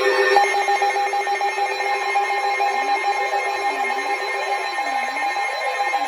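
Electronic emergency alert alarm: a rapidly pulsing beep starts about half a second in, joined about three seconds in by a lower tone that sweeps up and down about once a second.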